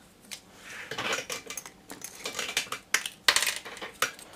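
Hands handling a styrene plastic strip and small tools on a workbench: irregular light clatter, taps and rustling, with a few sharper clicks around three seconds in.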